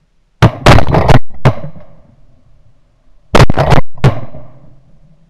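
Volleys of shotgun blasts from several hunters firing at ducks: a quick string of shots starting about half a second in, then a second rapid string about three and a half seconds in, each blast trailing off in a short echo.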